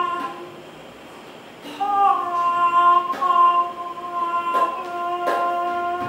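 Solo female Nanguan singing: after a quieter first second or so, the voice holds a long, slightly wavering high note. A few sharp clicks sound behind it.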